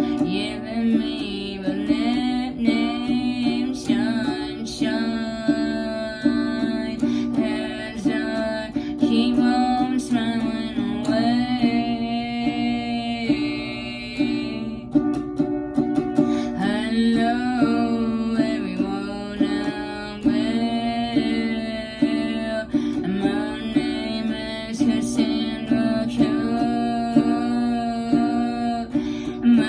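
Music: a strummed plucked-string instrument playing chords under a singing voice.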